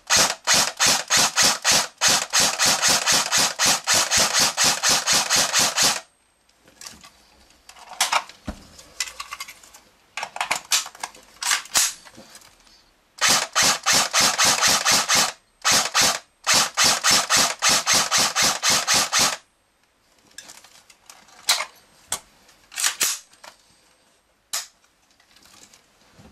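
Real Sword airsoft Dragunov SVD, an electric gearbox rifle, firing in rapid runs of sharp shots at about seven a second: a long run that stops about six seconds in, then three more bursts of one to three seconds. A few scattered single shots or clicks follow near the end.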